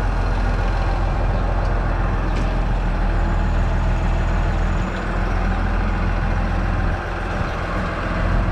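A heavy engine running steadily, its level dipping briefly about five and seven seconds in.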